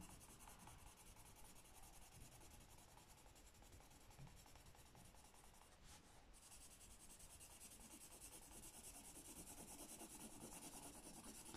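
Faint scratching of a green coloured pencil shading on notebook paper with quick back-and-forth strokes in one direction, growing a little louder in the last few seconds.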